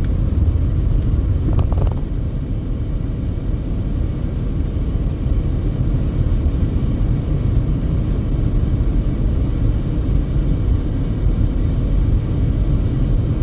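Steady low rumble of road and engine noise inside a moving passenger car's cabin.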